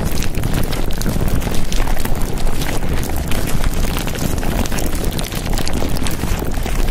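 Loud, steady rushing noise with constant fine crackling, the dense sound bed of a subliminal edit.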